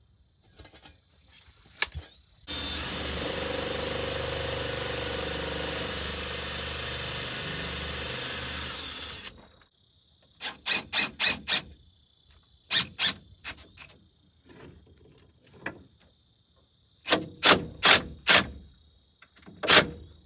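Cordless drill driving screws into wooden framing studs. One long run of about seven seconds with a high squeal in it, then short trigger bursts in quick groups of two to four.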